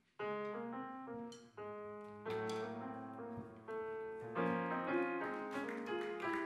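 Grand piano playing unaccompanied jazz chords. It comes in about a quarter second in after a brief silence, and each new chord rings on until the next.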